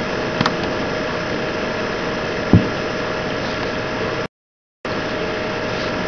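Steady hiss and hum of the recording's background noise, with a small click about half a second in and a sharp low thump, the loudest sound, about two and a half seconds in. The noise cuts out to total silence for about half a second just past four seconds, then resumes.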